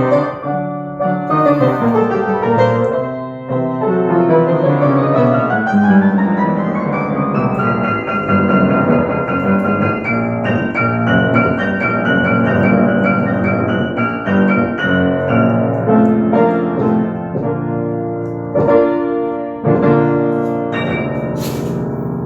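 Piano-sounding music played on a keyboard: a run of notes climbs steadily in pitch for a few seconds, then a rapid stream of notes continues under a held high note.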